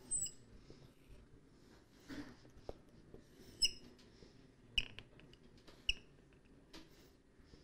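Marker pen squeaking on a whiteboard while lines are drawn: about four short high squeaks with lighter scratchy ticks between them.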